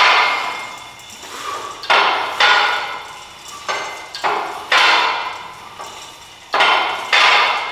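Metal weight-stack plates of a cable lat pulldown machine clanking on each rep: sharp metallic clanks that ring briefly, mostly in pairs about half a second apart, a pair every two seconds or so.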